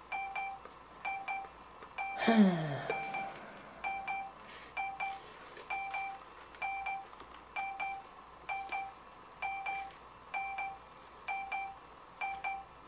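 Electronic machine beeping: a short double beep repeating about once a second, steady and unchanging. About two seconds in, a falling electronic swoop sounds over it.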